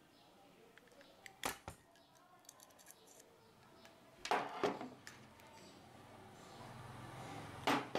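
Metal clicks and clacks of a Stanley hand rivet gun being handled while the spent rivet pin is taken out of its nose: a pair of light clicks, a louder pair a little after four seconds and one more near the end.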